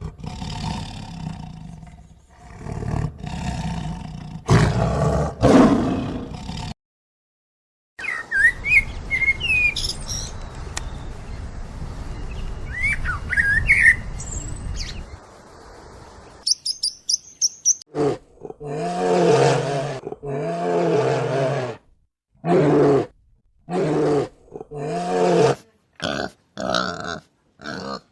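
A run of different animal calls, one after another with short gaps: first a low roar-like call, then birds chirping, then a series of short, repeated animal calls.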